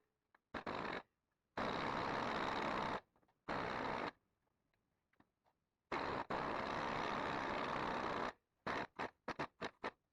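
Impact wrench run in trigger bursts on suspension fasteners: a few runs of a second or two, then a quick string of short blips near the end.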